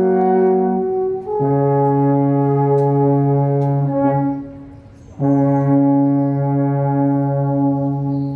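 Four wooden alphorns played together in long held chords. The chord changes about a second and a half in, the horns drop away briefly around five seconds, and then they sound another held chord.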